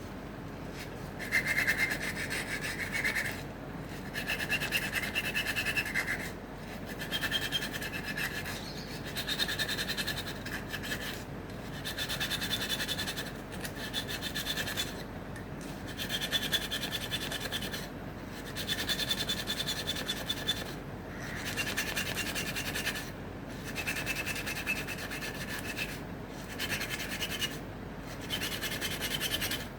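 Hand file rasping on the teeth of an acacia-wood comb, sharpening them to points. It goes in long, even strokes roughly every two seconds, each with a high pitch that shifts from stroke to stroke.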